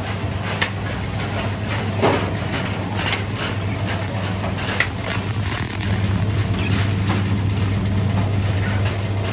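Mandarin sorting line running: a steady hum from its roller conveyor and grading machinery, a little louder from about six seconds in, with scattered light knocks and clicks of fruit tumbling over the rollers.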